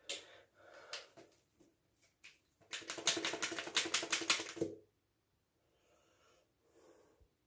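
Hands handling small objects: a few light taps, then about two seconds of rapid clicking or rattling in a small tiled room.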